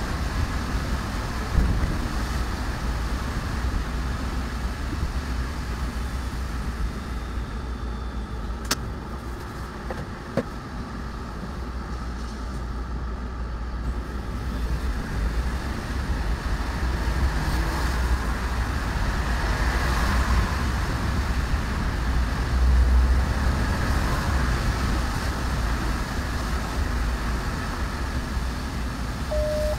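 Ride inside a moving city bus: steady engine and road rumble that eases for a few seconds around ten seconds in and builds again afterwards, with three sharp clicks along the way.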